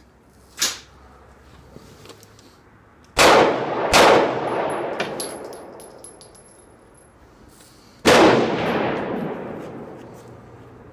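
SCCY CPX-2 9mm pistol fired: two quick shots about three seconds in, then a single shot about eight seconds in, each echoing and dying away slowly under the range's wooden roof. A fainter sharp crack comes about a second in.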